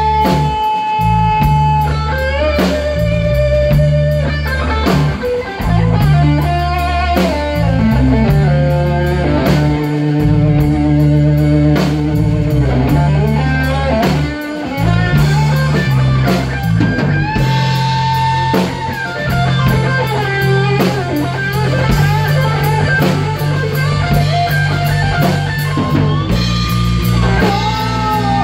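Blues-rock band playing an instrumental break: a lead guitar with sustained, bending notes over bass and drum kit.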